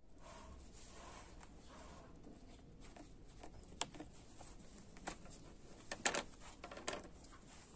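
Faint rustling of embroidered fabric being handled and smoothed on a wooden table, with a few short light clicks or taps in the second half.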